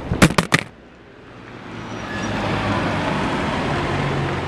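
A few sharp knocks from the camera being handled, then the rumble of a road vehicle's engine and tyres, growing louder from about a second in and holding steady.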